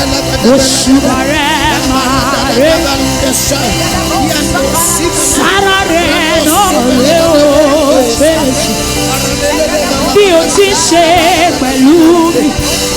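Sustained instrumental chords playing steadily under several voices at once, wavering and overlapping, as a congregation sings and prays aloud together.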